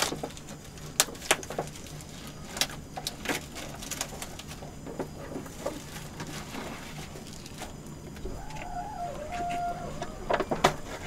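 Plastic packaging of an instant jjamppong noodle packet being torn open and handled: scattered sharp crinkles and rustles over a steady low hum.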